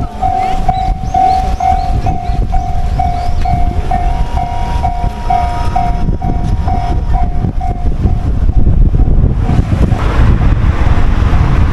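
Railroad level-crossing warning bell ringing in a steady pulse, about two strokes a second, fading out about eight seconds in. A loud low rumble runs underneath.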